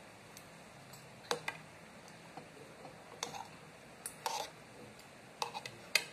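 A metal spoon and fork clinking and scraping against a bowl while eating: a dozen or so uneven light clicks, with one short scrape a little past the middle and the sharpest clicks about a second in and near the end.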